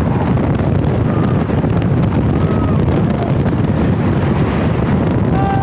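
Loud wind rush on the microphone over the rumble of The Voyage wooden roller coaster's train running at speed on a rain-wet track, where low friction makes it run very fast.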